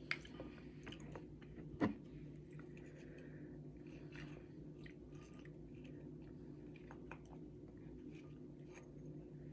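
A person chewing Samyang carbonara instant noodles: quiet, scattered wet mouth clicks, with one sharper knock about two seconds in.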